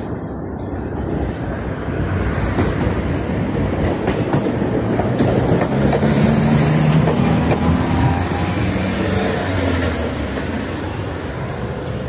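KTM-28 (71-628-01) low-floor tram approaching and pulling in to the stop. The rumble of its wheels on the rails grows louder as it draws near. A thin high whine runs through the middle of the approach, and low humming tones come in as it slows alongside.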